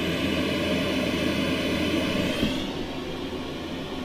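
Steady rushing noise with a low hum underneath, which turns duller about two and a half seconds in.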